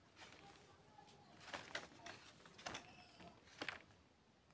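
Near silence, broken by a few faint, short rustles and taps from an orange being handled and picked up off a bamboo tray.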